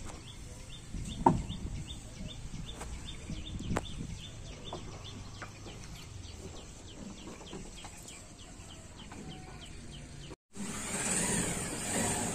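Outdoor ambience with a high chirp repeating about three times a second, and two sharp knocks, the louder one about a second in. Near the end the sound cuts to a louder, brighter noise.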